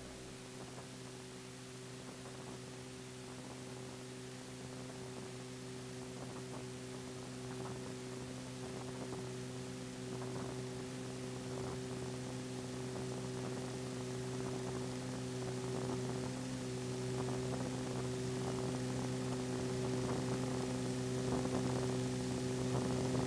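Steady electrical mains hum, a stack of low steady tones, with light hiss, slowly growing louder. It is the background noise of a crude film-to-video transfer of silent 8mm footage.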